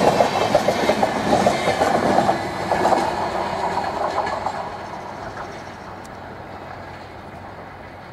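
Passenger coaches' wheels clattering rhythmically over the rails as a train passes close by. The clatter fades away over the second half as the tail of the train recedes.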